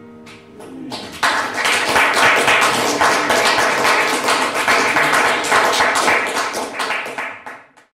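The last acoustic guitar chord dies away, then an audience starts applauding about a second in, with dense, steady clapping that fades out at the end.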